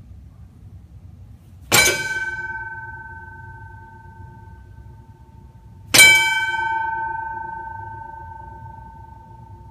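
Streetcar foot gong, its dome bell struck by stepping on the pedal: two clangs about four seconds apart, each ringing on and fading away over about three seconds.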